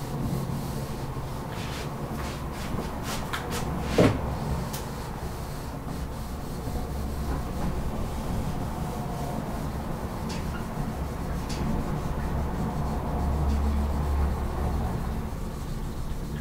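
Whiteboard eraser rubbing across the board as writing is wiped off, with a few clicks and one sharp knock about four seconds in. A steady low hum runs underneath.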